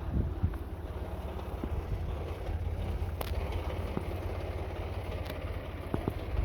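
Tractor-driven wheat thresher running steadily: a dense, fast-pulsing low mechanical rumble, with a couple of brief sharp clicks.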